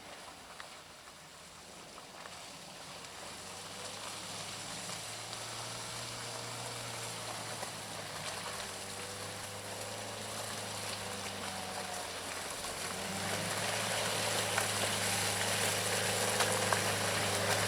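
An off-road SUV's engine running at a steady note, getting gradually louder as it approaches, with a jump in loudness about two-thirds of the way through.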